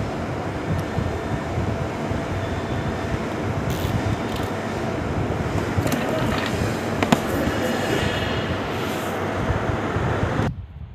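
Steady rumbling background noise with a few light clicks of small plastic parts being handled; the noise cuts off abruptly near the end.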